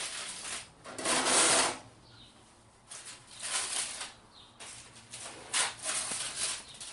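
Aluminium foil being peeled off a baking dish and crumpled by hand, crinkling in several separate rustles, the longest over the last two seconds.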